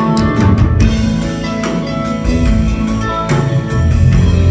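Live band music without vocals: solid-body electric guitar played over a drum kit and bass, with repeated drum and cymbal hits.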